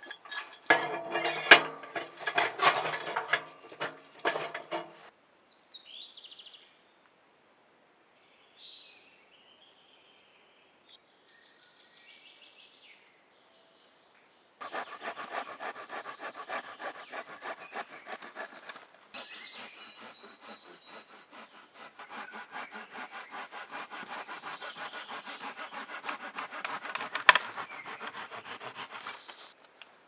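Hand saw cutting through a wooden branch in steady back-and-forth strokes, with a short break in the middle. Before it come a few seconds of sharp metallic clanks and knocks, then faint bird calls.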